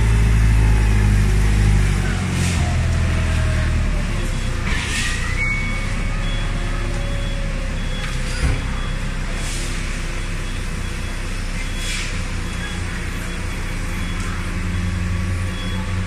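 Forklift engine running as it lifts and carries a bale of aluminum scrap, loudest in the first two seconds, then steadier and lower. Short high beeps repeat from about six seconds in, with a few brief hisses.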